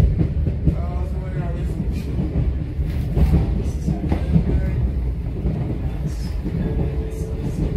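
Metro train running, heard from inside the car: a steady, loud low rumble of wheels on track with scattered clicks and rattles.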